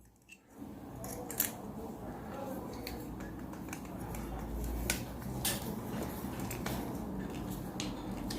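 Scattered sharp clicks and small handling noises of a wire being cut and fitted to a two-pin socket's terminal, over a low steady background.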